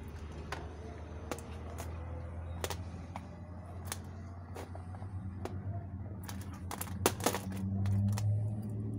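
Sharp metallic clicks and clinks as a bullet mold and its metal handles are handled with gloved hands. They come sparsely at first, then in a quick cluster late on, over a low steady hum.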